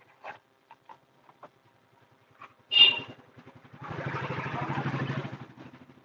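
A sharp metallic clank about three seconds in, then a rough engine rumble that swells and fades over about a second and a half.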